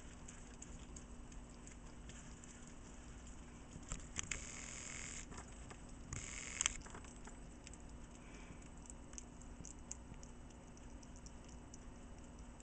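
A hedgehog anointing itself: faint rapid wet clicks of its mouth smacking and licking as it works up froth. Two louder rustles about four and six seconds in, each ending in a sharp click.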